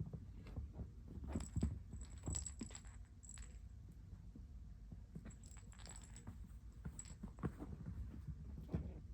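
Kitten purring loudly, a steady low rumble, with scattered light clicks and knocks on top.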